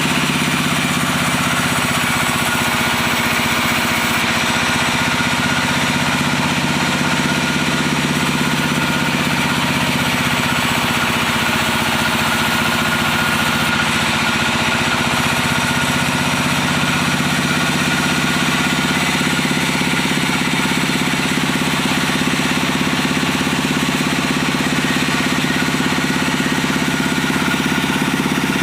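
Diesel engine driving a wood saw, running steadily at an even speed.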